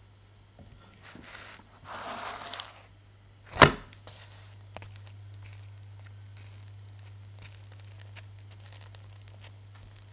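Flatbread being flipped in a nonstick frying pan: a silicone spatula scrapes under the bread, then about three and a half seconds in the bread slaps down sharply onto the pan. Afterward there are faint scattered crackling ticks as it cooks on medium heat.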